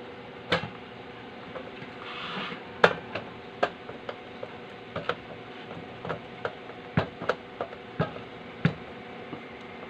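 Screwdriver driving the cover screws into the steel case of a Konzert KCS-212 amplifier: a run of irregular sharp metal clicks and taps, with a short scrape about two seconds in.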